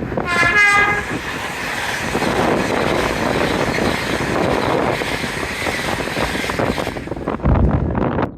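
A high-speed express train on the East Coast Main Line sounding a short horn note that drops in pitch as it arrives, then rushing past at speed with a loud, steady roar of wheels and air for about seven seconds. Near the end there is a low gust of wind on the microphone.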